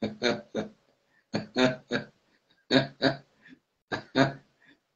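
A man laughing hard in groups of short, voiced ha-ha pulses, four bursts of two or three pulses each with brief breaths between them.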